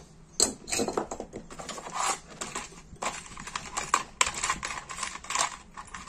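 Small metal rotary-tool bits rattling and clicking in a clear plastic box as a hand sorts through them, giving a run of quick, irregular clicks.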